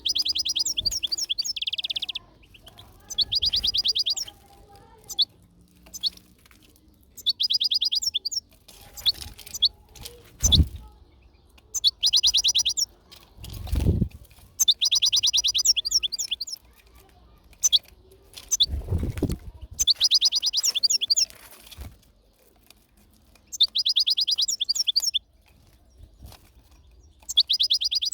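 European goldfinch singing: repeated bursts of rapid, high twittering, each a second or two long, with short pauses between. A few dull low thumps fall between the phrases.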